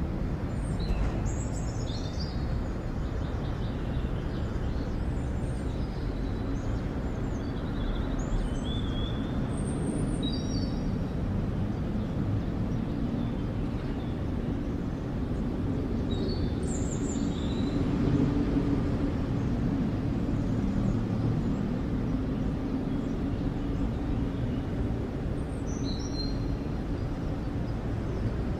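Outdoor city ambience: a steady low rumble of distant traffic that swells a little around the middle, with short, high bird chirps now and then.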